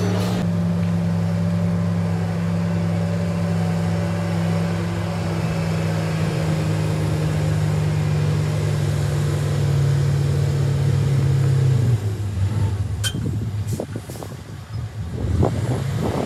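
A heavy diesel engine of a construction machine (wheel loader or dump truck) runs steadily, then stops about twelve seconds in. After that come irregular gusts of wind noise on the microphone.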